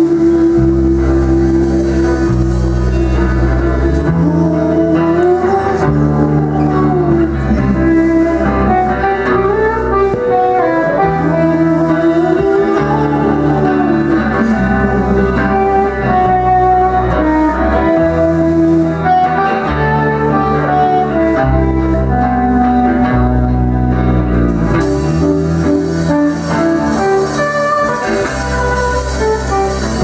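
Live rock band playing an instrumental passage: a guitar carries a lead melody of sliding, bending notes over bass guitar.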